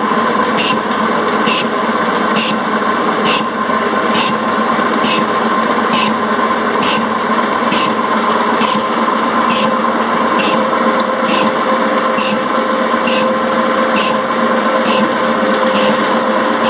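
Horizontal boring machine turning a single-point fly cutter that takes a metal-cutting pass across a steam cylinder block, shaping its radius. The machine's drive hums steadily, and the cutter strikes the work once per revolution, giving a sharp tick about twice a second.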